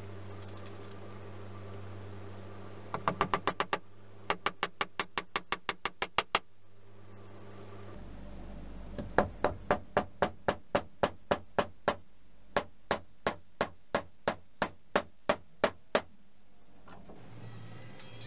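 Claw hammer tapping small nails into brass hinges on a wooden binder spine: a quick run of light strikes, then a steadier series of about two strikes a second.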